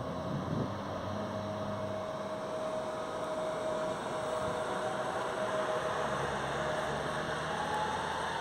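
PESA Elf EN76 electric multiple unit passing close by: steady running and wheel noise under a high, steady whine, with a second whine rising near the end.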